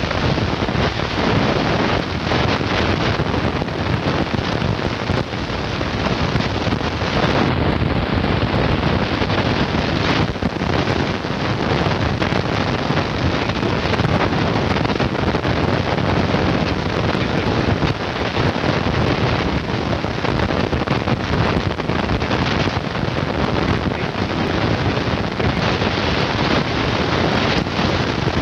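Wind buffeting the camcorder microphone: a steady rushing noise with small gusts and dips.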